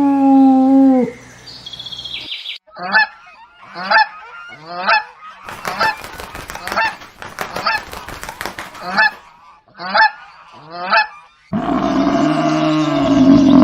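A series of about a dozen short honking animal calls, roughly one a second. Before them, a long held call ends with a falling drop about a second in. Near the end a different loud animal call begins.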